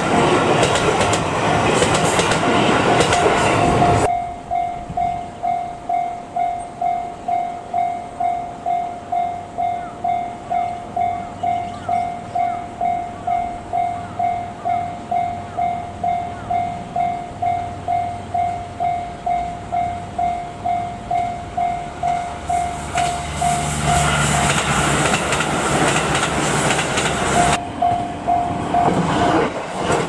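Level-crossing alarm ringing a repeated electronic clang about twice a second. An electric commuter train runs past over the first few seconds and cuts off suddenly. Near the end a second train rumbles through with a low engine hum, the alarm breaks off, and it starts again briefly as a third train arrives.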